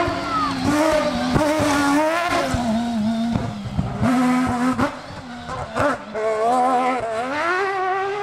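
Rivet Mazda cross-country rally car driven hard on a dirt stage: the engine revs climb and drop back again and again through gear changes. Short sharp cracks come through over the engine.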